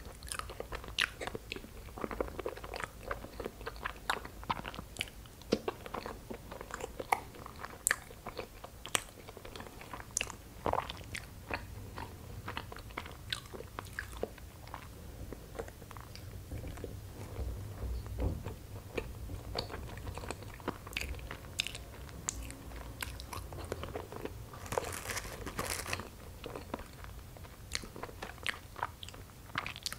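Close-miked chewing of soft, sticky cream-cheese-filled injeolmi rice cakes: a steady run of small, irregular wet mouth clicks and squishes.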